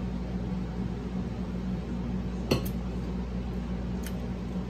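A drinking tumbler set down on a table: a sharp knock about two and a half seconds in and a fainter one near the end, over a steady low hum.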